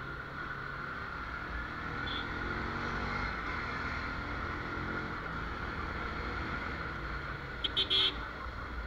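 Bajaj Pulsar NS motorcycle engine running at cruising speed, with wind and road noise, the engine note rising a little about three seconds in. A short burst of two or three horn beeps sounds near the end.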